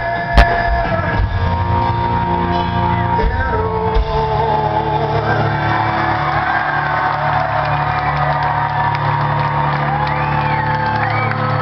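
Live rock band in a large hall playing the end of a song: hard drum hits for the first few seconds, then a held chord from distorted electric guitars and bass ringing on, with the crowd shouting and whooping over it.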